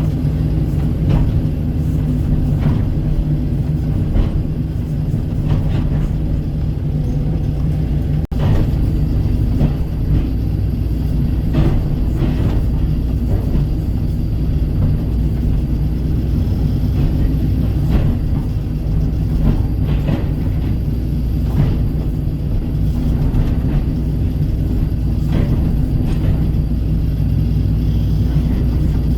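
Kobelco SK135 excavator's diesel engine running steadily under work, with frequent short clicks and knocks over it. The sound briefly cuts out about eight seconds in.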